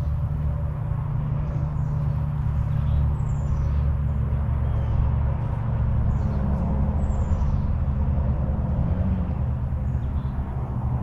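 A steady low rumble, with birds giving short falling chirps every second or two.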